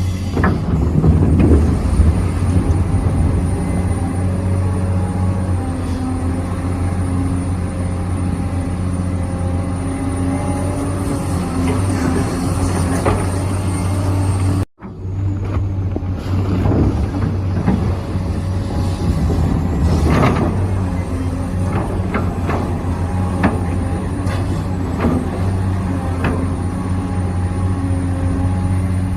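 Remote-control excavator and truck working, with a steady low hum and a faint high whine, broken by scraping and knocking as material is moved. The sound cuts off abruptly about halfway through and picks up again straight away.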